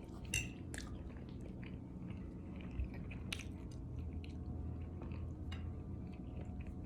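A person chewing food: soft, scattered wet mouth clicks over a faint low steady hum.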